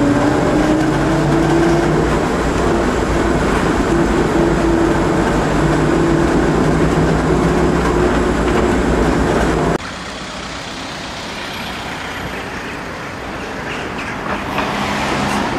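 Running noise inside a moving bus: a steady rumble with a motor whine that rises in pitch and then holds. About ten seconds in it cuts abruptly to quieter street sound as a bus drives past, getting louder near the end.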